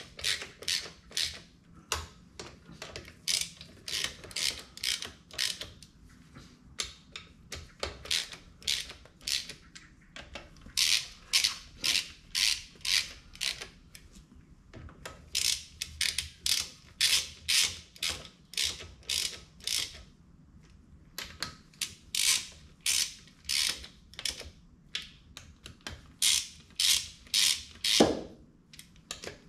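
Hand ratchet wrench clicking in runs of back-and-forth strokes, about two or three clicks a second with short pauses between runs, as the front pump bolts of a TH350 automatic transmission are run down. One louder clunk near the end.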